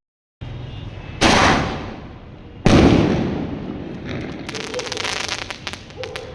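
A 1.5-inch sky shot firework (Atlantic Shower cake) going off: two loud bangs about a second and a half apart, each fading away, followed a couple of seconds later by a rapid run of small crackling pops.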